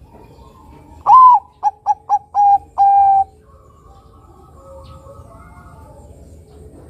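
Bangkok-type zebra dove (perkutut) singing one coo phrase about a second in. It opens with a long, slightly falling note, runs into four quick short notes, and ends on a longer held note, about two seconds in all.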